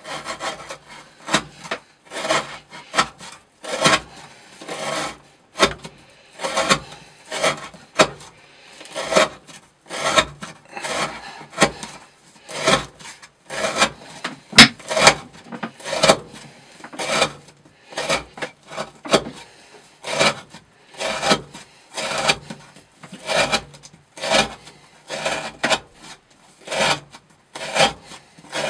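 Carbon-steel knife with a 40° V edge slicing through 20 mm rope again and again, about one rasping cut a second. This is a repeated rope-cutting test of how well the edge holds.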